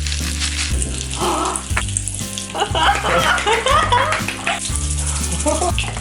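Background music with a steady stepping bass line. About halfway through comes a couple of seconds of high warbling sounds.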